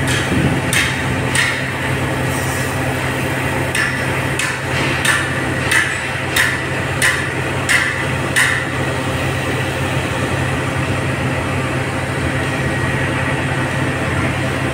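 Hammer blows on metal, about ten sharp ringing strikes at a steady pace of a little under two a second, stopping a little past halfway. A steady low hum runs underneath.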